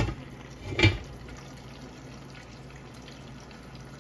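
A glass lid knocks down onto an electric skillet with a short ringing clank about a second in. After that, chicken drumsticks sizzle steadily in oil under the lid.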